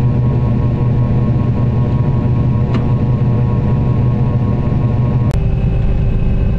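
Combine harvester's engine and machinery running steadily at a constant pitch. About five seconds in, the sound changes abruptly to another steady engine note.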